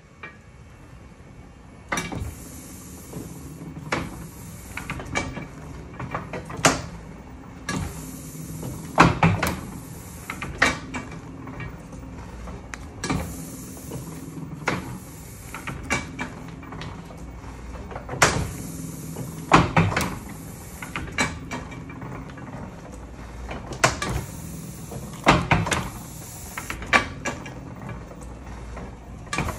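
Chandler & Price platen letterpress running, starting about two seconds in. Its platen and rollers cycle with repeated clanks and clicks and patches of hiss.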